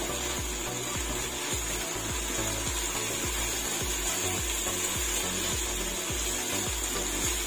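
A silicone spatula scraping and stirring diced pork around a granite-coated pan, over a steady sizzle of frying.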